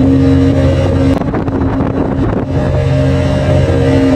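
Speedboat engine running at a steady pitch under rushing wind and water noise. A little over a second in, the steady tone breaks up and dips for about a second before settling back.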